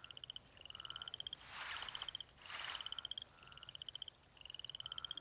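Frog calling in short pulsed trills, about one a second, each rising slightly in pitch. Two brief soft swells of hiss come in the middle.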